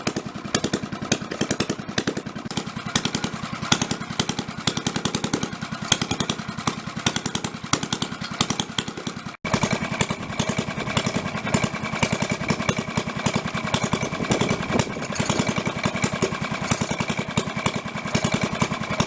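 1930 Fairbanks Morse ZD single-cylinder four-stroke stationary engine running steadily, with a rapid, even beat of firing strokes. The sound drops out for an instant a little under halfway, and a thin, steady high whine joins in for the rest.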